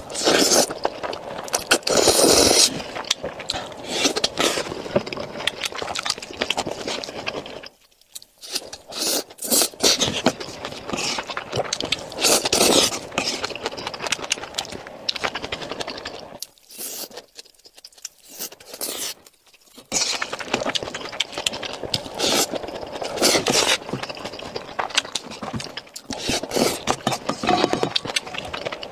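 Close-miked eating sounds: wet chewing and slurping of rice and glass noodles, with a utensil scraping against the bowl. A short pause about eight seconds in and a longer one a little past the middle.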